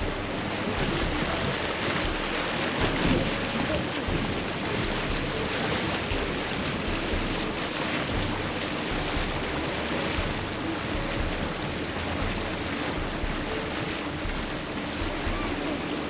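Tour boat under way: a steady rush of water and wind over the microphone, with a low, even engine hum beneath it.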